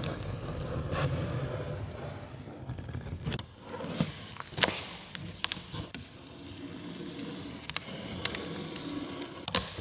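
Box-cutter blade slicing through packing tape along the seams of a cardboard box, a rough scraping with scattered sharp clicks and ticks.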